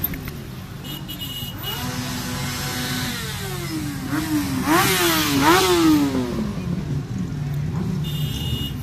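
Motorcycles idling and rolling slowly past in a line, engines running low. Partway through, one bike is revved several times in quick succession, its pitch jumping up and dropping back with each blip before settling.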